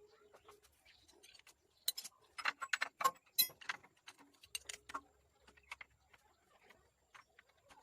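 Metal tools and engine parts clinking and clicking as they are handled, with a quick run of sharp clinks about two to three and a half seconds in and a few more near five seconds.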